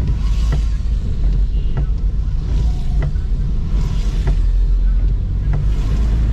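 Wind rumbling on the microphone, with light taps at a steady walking pace of a little under two a second, typical of footsteps, and a few brief swells of hiss.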